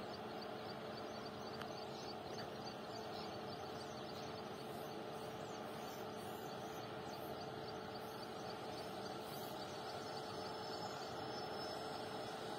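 Steady rural outdoor background noise with a faint low hum and faint, rapidly repeated high chirping.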